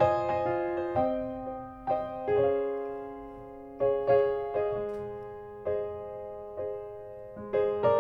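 Piano playing a slow, sparse intro: chords and single notes struck roughly once a second, each left to ring and fade.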